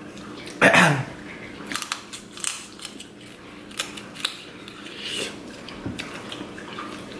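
Close-miked eating: scattered crunches and clicks of snow crab leg shells being cracked and picked and of corn on the cob being bitten. A short vocal sound with a falling pitch comes about a second in.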